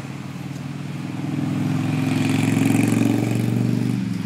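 A motor vehicle's engine running, a steady low drone that grows louder to a peak about three seconds in, then falls away near the end.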